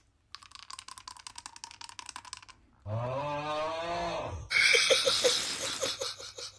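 Rapid clicking for the first couple of seconds, then the "AUUGGGHHHH" meme sound alert: a man's drawn-out "augh" yell, held for a few seconds and turning loud and harsh near the end.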